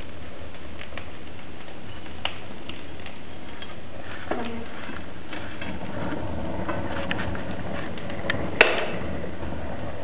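Fire crackling in an iron stove's firebox, where a leather boot is burning, with scattered small pops. A knock comes about four seconds in and a sharp metallic clank comes near the end as the stove door is shut and latched.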